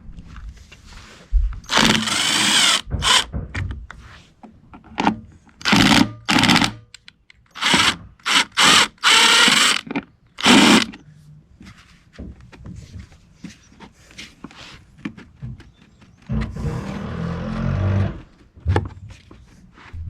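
Impact driver with a Torx bit spinning in a series of short and longer bursts, backing out the screws that hold a backpack blower's air filter cover.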